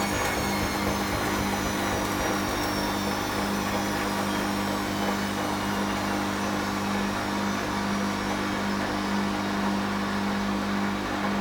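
Bosch WFL1611 front-loading washing machine spinning after the prewash. The motor's high whine slides slowly down in pitch as the drum slows, over a steady low hum.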